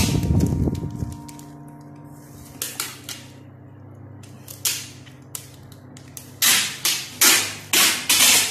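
Brown packing tape being pulled off its roll and wrapped around a plastic jar lid to seal it: a few soft tape sounds, then from about six seconds in a quick run of loud rips, two or three a second. Background music fades out in the first second.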